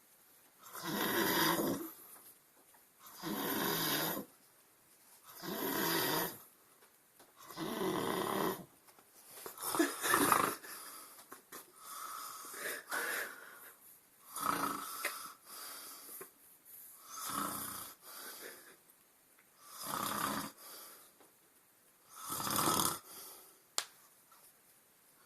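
A man snoring in his sleep, a snore on each breath about every two and a half seconds, with a run of shorter, weaker snores in the middle. A single brief click near the end.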